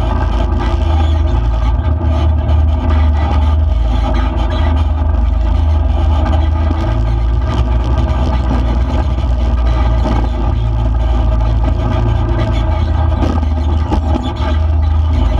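Motor vehicle driving along a dirt road. The engine holds a steady note under a heavy low rumble.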